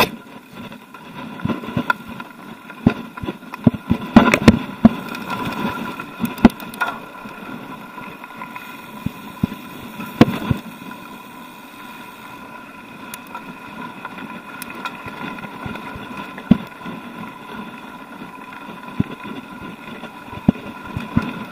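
Mountain bike rolling along a dirt and gravel trail, heard from a camera on the rider: rattles and sharp knocks from bumps over a steady humming buzz.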